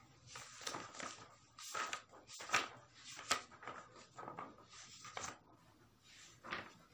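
Paper rustling in a run of short bursts as drawing-book sheets are handled and turned.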